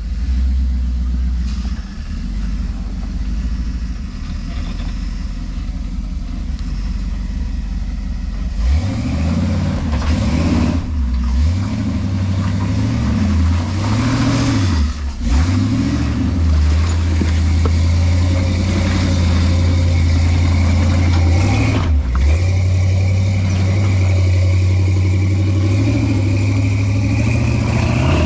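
Off-road rock crawler's engine running at low revs, then revved up and down repeatedly from about 9 seconds in, then held at steady higher revs under load.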